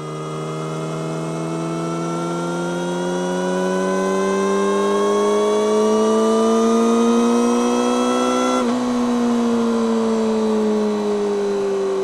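Yamaha YZF-R6's inline-four engine through an Akrapovic megaphone slip-on exhaust. Its pitch rises slowly and steadily as the bike pulls for about nine seconds, then breaks off and falls slowly as the throttle is eased.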